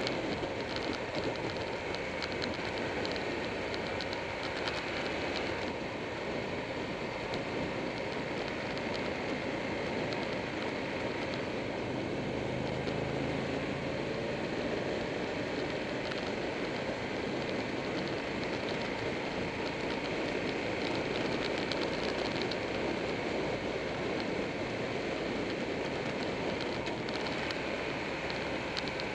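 Steady rush of wind and road noise at speed on a motorcycle-mounted camera, with the motorcycle's engine running underneath.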